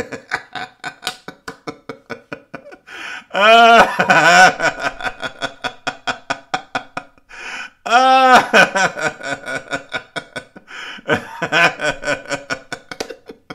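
A man laughing hard for a long stretch: rapid breathy pulses of laughter, about five a second, broken by two louder, higher cries of laughter about three and a half and eight seconds in.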